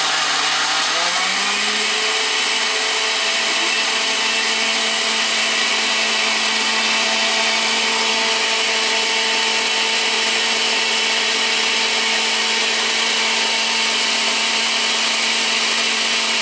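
Countertop blender motor running at full speed, loud and steady, its whine climbing in pitch over the first two seconds and then holding. The jar is packed full of boiled tomatillos and serrano peppers for green salsa, and the contents stick together against the jar walls instead of blending.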